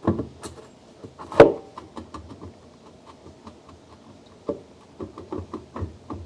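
Irregular knocks and light tapping of parts being handled in the open tub of a top-load washing machine during disassembly. One sharp knock about a second and a half in is the loudest, followed by a run of small taps and a few more knocks near the end.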